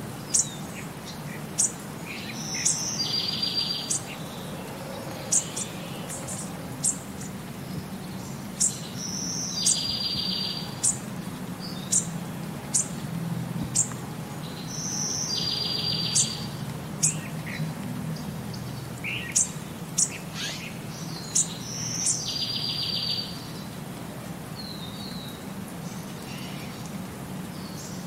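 Birdsong used as a background track: sharp, high chirps every second or two, with a buzzy trilled phrase that returns every six or seven seconds, over a faint low hum.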